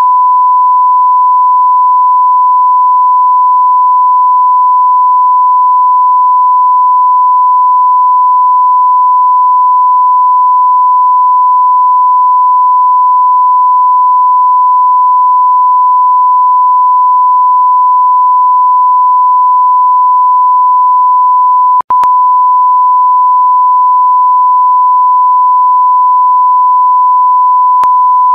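Steady electronic sine-wave tone held at a single pitch, with a brief click and dropout about twenty-two seconds in and a faint click near the end.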